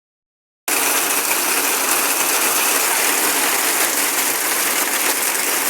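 Heavy rain mixed with hail: a loud, steady, dense clatter of hailstones and rain striking surfaces, starting abruptly just under a second in.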